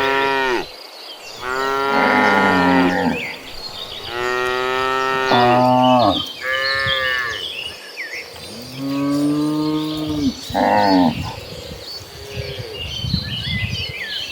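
A herd of cows mooing, one long moo after another with short gaps between, some deep and some higher-pitched, with faint high chirping in the background.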